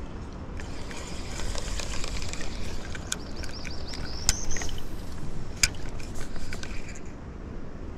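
Spinning rod and reel being handled in a boat: rustling handling noise with a few sharp clicks, the sharpest about four seconds in and another at five and a half.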